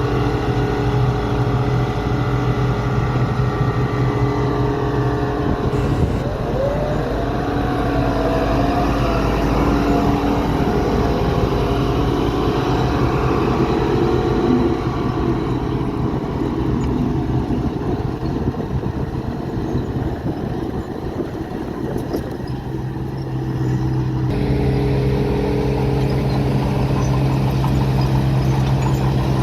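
Diesel engines of heavy earthmoving machinery running steadily. The engine pitch rises briefly about six seconds in, and the sound changes abruptly back to a steady engine note a few seconds before the end.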